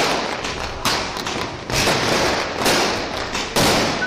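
Fireworks and firecrackers going off: a run of loud bangs about a second apart, each trailing off before the next.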